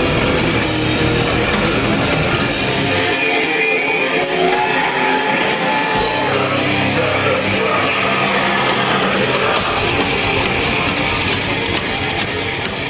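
Heavy metal band playing live: distorted electric guitars and drums with vocals, loud throughout. The low end drops away for a few seconds near the middle and comes back in.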